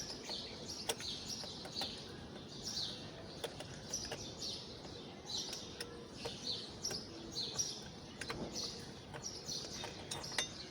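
Birds chirping over and over, with a few sharp clicks as a spark plug socket is turned with a rod to loosen the plug.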